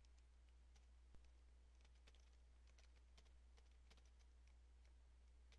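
Faint keystrokes on a computer keyboard, irregular soft clicks as a short line of text is typed, over a low steady hum.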